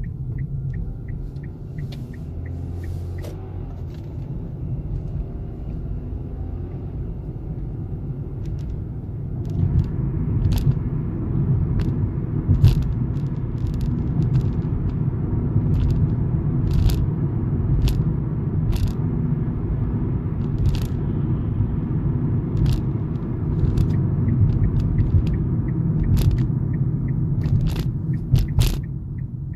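Road and running noise inside a 2016 Kia Rio's cabin while driving: a steady low rumble that grows louder about ten seconds in. Regular light ticking for the first couple of seconds, then scattered sharp clicks and knocks, the strongest just before the end.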